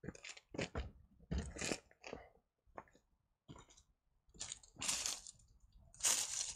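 Footsteps crunching through dry fallen leaves, a dozen or so uneven steps.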